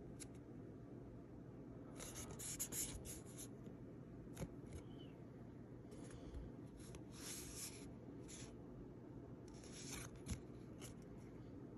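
Faint rustling of a trading card being handled by fingers over a binder's plastic sleeve pages, in three short bursts with a couple of light clicks, over a low steady room hum.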